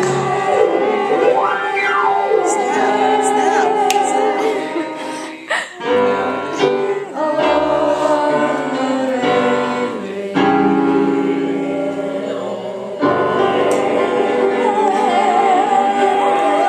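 Music with singing voices holding long, wavering notes, the sound changing abruptly several times.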